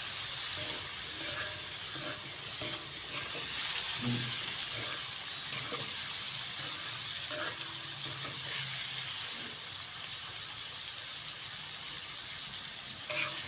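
Stir-fry sizzling steadily in a pan, with a few faint clicks now and then.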